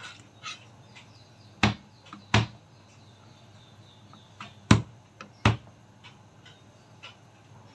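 Kitchen knife chopping through ginger onto a plastic cutting board: four sharp knocks in two pairs, one pair about a second and a half in and the other near five seconds, with faint clicks of handling between them.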